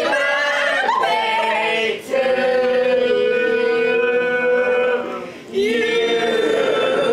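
Voices singing long held notes, with short breaks about two seconds in and again about five and a half seconds in.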